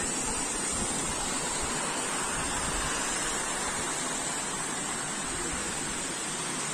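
Steady rush of water running over rocks at a waterfall and stream, an even hiss with no breaks.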